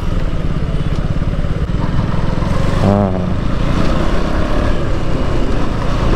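Single-cylinder KTM Duke motorcycle engine running steadily under way, with wind rush.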